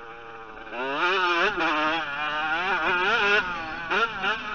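Motocross bike engine heard from onboard, soft off the throttle at first, then opening up about a second in and revving up and dropping back several times in quick succession.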